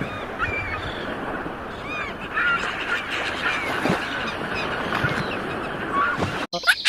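A flock of birds calling: many short overlapping calls over a dense, noisy din. Near the end it cuts off and louder separate calls begin.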